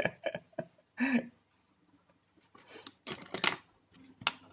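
A man's short breathy laughs, with rubbing and scraping of a hand-held phone close to its microphone in several short strokes.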